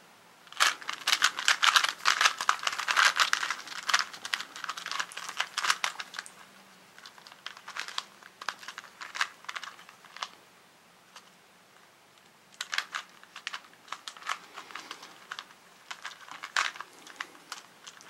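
A plastic Rubik's Cube being twisted quickly by hand: rapid runs of clicking and clacking as its layers turn. The turning is busiest in the first few seconds, thins out, stops briefly past the middle, then starts again in another run.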